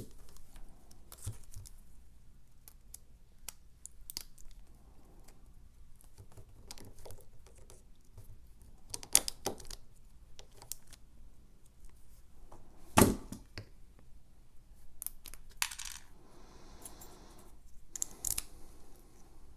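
Scattered light metallic clicks and clinks from handling an opened Evva ICS lock cylinder and its small parts. Two louder sharp knocks come about nine and thirteen seconds in.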